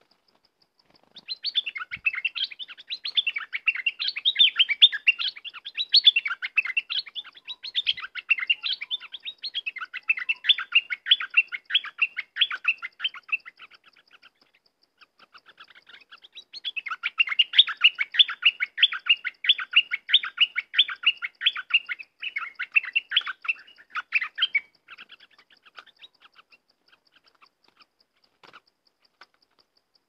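Caged decoy bulbul singing: long runs of rapid, bubbly chirping notes in two bouts, with a short lull between them, then trailing off to scattered calls near the end.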